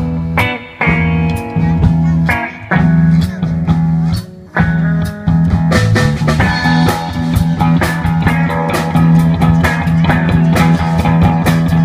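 Rock-style music with guitar, a strong steady bass line and a regular beat, with a short drop in loudness about four seconds in.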